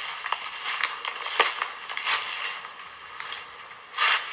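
Footsteps crunching through dry fallen leaves in a string of uneven steps, with the loudest crunch near the end.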